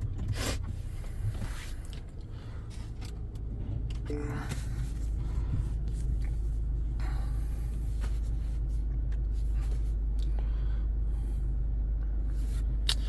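Steady low rumble inside the cabin of a 2022 Nissan Pathfinder with its engine running, with a few faint clicks and a brief short tone about four seconds in.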